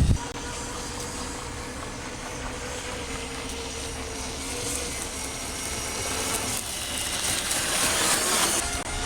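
Thunder Tiger Bandit RC speedboat's motor whining steadily as it runs across the water. The whine fades a little in the middle, then grows louder and higher in pitch near the end as the boat comes back closer.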